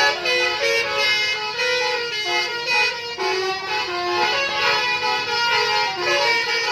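Bus 'telolet' multi-tone air horn playing a tune: several horn notes sound together and jump to new pitches every fraction of a second, with a brief break about three seconds in.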